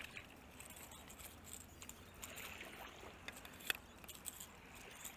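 Faint scattered clicks and small taps over a light hiss, with one sharper click about three and a half seconds in.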